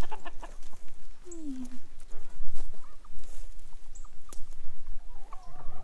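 Footsteps crunching over dry pine chips and straw in an uneven patter. Near the end a drawn-out, wavering high animal cry comes in.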